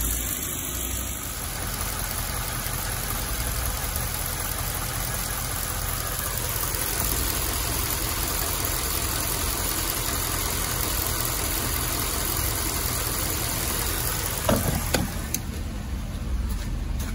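Mercedes-Benz GL550's 5.5-litre V8 idling steadily under the open hood, run after a thermostat replacement to check that the new thermostat opens and the coolant temperature is right. A few sharp knocks sound near the end.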